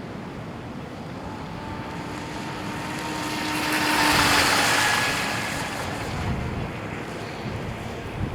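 Brushless electric RC boat (a modded Rio EP with a 2600kv motor) making a fast pass: the sound of its motor and hull on the water swells to its loudest about four seconds in, then fades. Wind buffets the microphone throughout.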